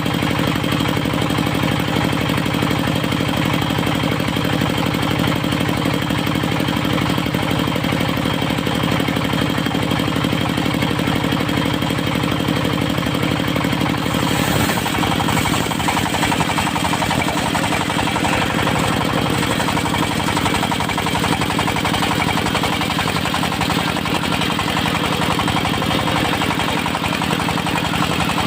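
Diesel-driven circular sawmill running steadily. About halfway through, the low hum thins out and a brighter, noisier sound takes over.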